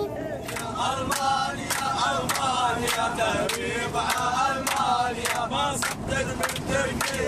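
A group of young men singing a chant together, clapping in time at about two claps a second.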